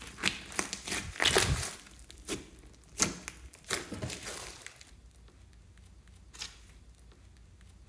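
Hands squishing, poking and stretching a thick slime mixed with small beads: sticky crackling pops and squishes, several in quick succession over the first four seconds or so, then quieter with one more squish about six seconds in.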